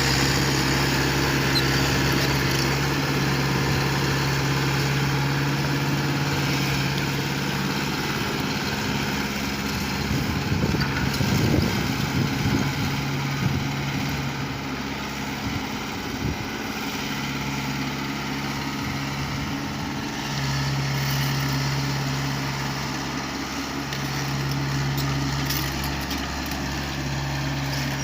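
Diesel engine of an earth-moving machine running. Its steady hum weakens and comes back several times in the second half, with a louder, rougher stretch of clattering noise about ten to twelve seconds in.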